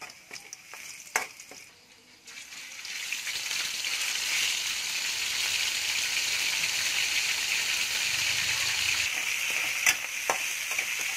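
Frying in a steel wok: garlic in oil at first with a few spatula clicks, then about two seconds in raw pork goes into the hot oil and a loud, steady sizzle starts. A spatula clicks against the wok near the end.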